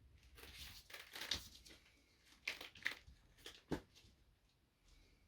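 Faint rustling and crinkling as a fursuit is handled and pulled on, with a few short sharp knocks and scrapes midway.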